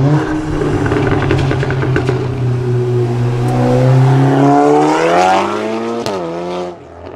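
Volkswagen Golf R Mk7's turbocharged 2.0-litre four-cylinder accelerating hard as the car pulls away, its revs climbing steadily for a couple of seconds. About six seconds in the revs drop sharply at a gear change with a short crack, then the engine fades.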